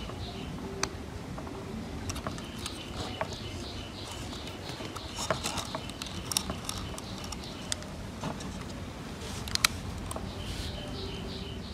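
Scattered small clicks and taps of plastic wire connectors and a circuit board being handled and plugged together inside a plastic security camera housing, with a sharper click about ten seconds in.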